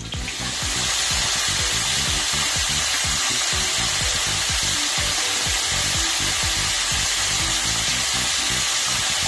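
Floured chicken tenders deep-frying in hot oil in a wire fry basket, a loud, steady sizzle from the freshly added batch. Background music plays faintly underneath.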